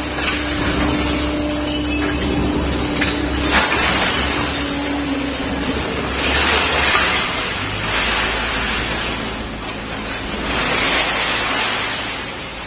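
Three-ram hydraulic metal baler running: a steady machine hum with several swelling rushes of noise in the second half.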